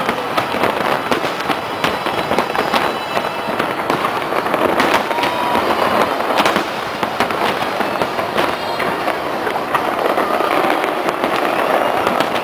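A large aerial fireworks display going off in a dense, continuous barrage of bangs and crackles.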